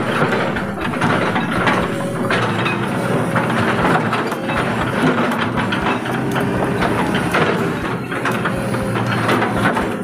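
Hitachi Zaxis 130 excavator's diesel engine running steadily, with irregular metallic clanks and rattles from the working machine.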